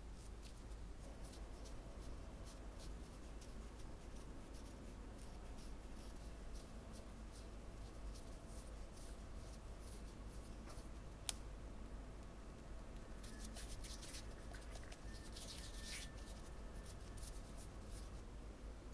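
Faint handling of soft dough: a metal spatula scraping sweet potato paste into a cup of manju dough, then fingers pressing, pinching and rubbing the floury dough closed, with scattered small clicks. One sharp tick comes about eleven seconds in, and the rubbing grows denser a little later.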